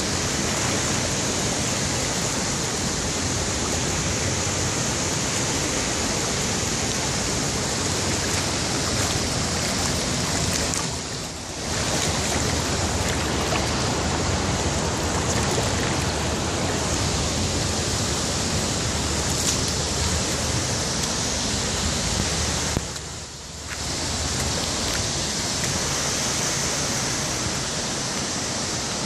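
River water rushing in turbulent rapids below an inflatable rubber weir, with water spilling over the weir: a steady rush of water, briefly quieter twice, about eleven and about twenty-three seconds in.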